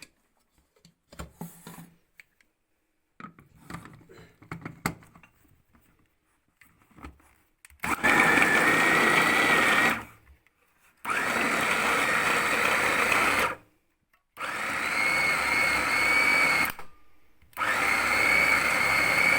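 Electric blender running in four bursts of two to three seconds each, with a steady whine, grinding cooked figs and garlic with olive oil into a paste. Light clicks and knocks come before the first burst, about eight seconds in.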